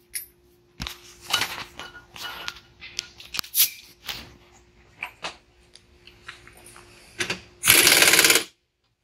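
Metal clinks and taps of tools and mower parts being handled, ending about eight seconds in with a short, loud burst of rapid clattering as a bolt on the mower's blade brake assembly is run tight.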